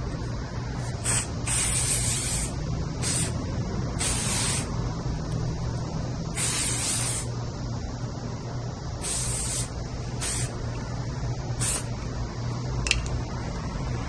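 Aerosol can of Carbon Pro waterproofing spray, sprayed in about eight short hisses of up to a second each, with a single click near the end.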